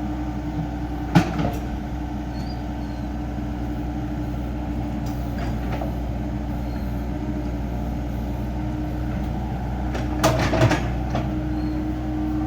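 Mini excavator's diesel engine running steadily, with a sharp metallic clank about a second in and a short run of clanks near the end as the machine works.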